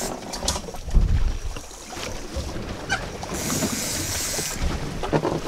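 Wind buffeting the microphone and waves against a small boat at sea, with a low gust about a second in and a few short knocks on board.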